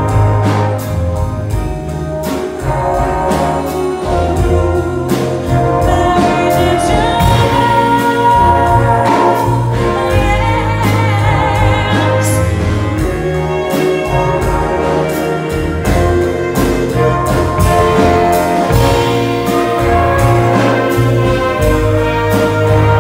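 A big band playing live, with saxophones and brass, while a woman sings the melody over a steady beat.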